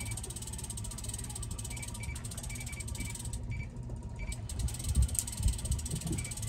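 Fishing reel being cranked, its clicker ratcheting rapidly, over the steady low drone of the boat's motor at trolling speed. A couple of low knocks about five seconds in.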